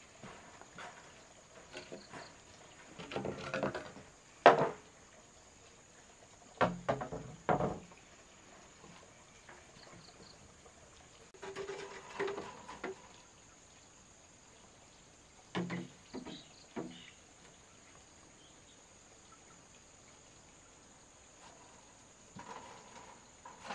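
Scattered knocks and clatters of wood being handled, in short groups every few seconds, the loudest a single sharp knock about four and a half seconds in. A steady high insect drone runs underneath throughout.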